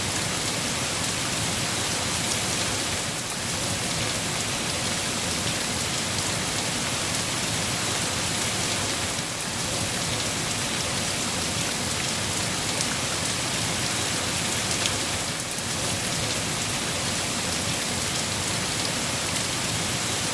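Steady heavy rain falling on a surface, an even dense hiss with scattered individual drop ticks.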